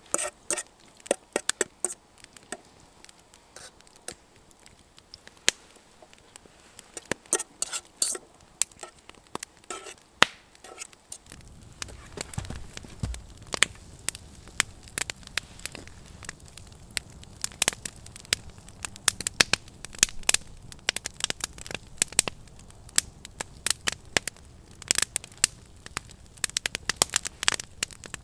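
Split-log wood campfire crackling, with sharp pops scattered irregularly through it. About eleven seconds in, a low steady rumble comes in under the crackling.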